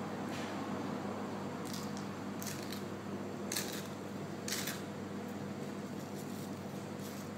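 A few short splashes of shallow water, about a second apart through the first two thirds, over a steady low hum.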